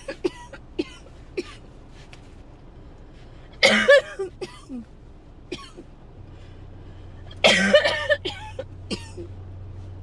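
A dry coughing fit in someone coming down with an illness: two bouts of coughing about four seconds apart, each a few coughs in quick succession, with small throat catches and coughs in between.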